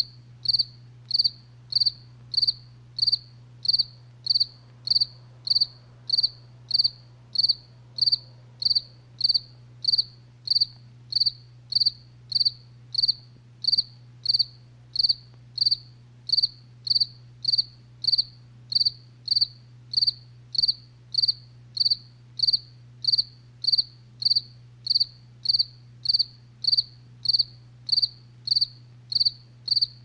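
A cricket chirping in a steady, even rhythm, about one and a half short high chirps a second, over a faint steady low hum.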